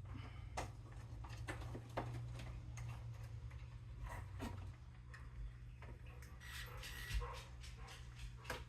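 Faint clicks, taps and knocks of plastic dispenser parts being handled and pushed into place, over a steady low hum. A brief high squeak comes about two-thirds of the way through.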